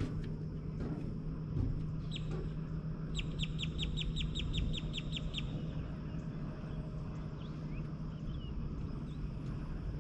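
A bird's rapid trill of about a dozen short, high, evenly spaced notes lasting about two seconds, starting about three seconds in, with a few faint chirps later. Underneath is a steady low hum and a low rumbling background.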